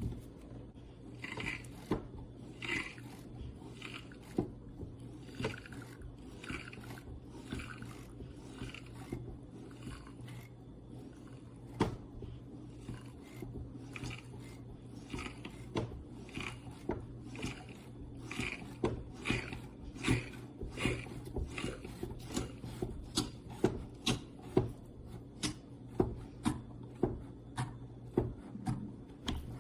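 Hands working a manual espresso maker: repeated short scraping strokes about one every second or less, turning into quicker, sharper clicks in the second half, over a steady low hum.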